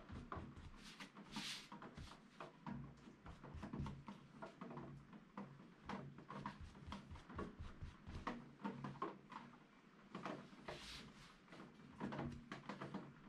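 Flat brush dabbing and stroking along the edges of a canvas piece on a cutting mat: a quick run of light taps and scrapes, with a longer brushing swish about a second and a half in and again near eleven seconds.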